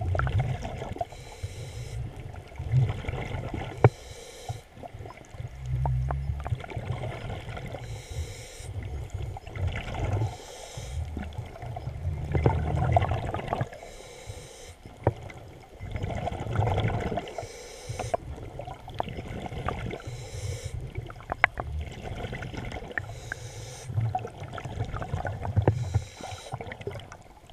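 Water sloshing around a small boat, with heavy, uneven low rumbling and scattered knocks.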